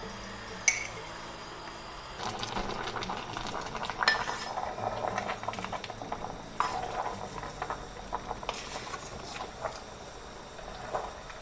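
Halved tomatoes and rock salt being stirred with a spoon in a large stainless steel pot. Irregular scraping and clattering begins about two seconds in, with several louder knocks of the spoon against the pot. There is a single sharp knock shortly before the stirring starts.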